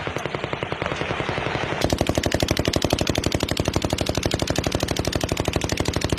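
Sustained automatic gunfire: rapid scattered shots at first, then about two seconds in a long unbroken burst of fast, evenly spaced shots from an automatic weapon.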